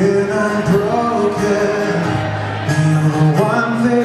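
Live acoustic guitar music with a male voice holding a wordless melody over it.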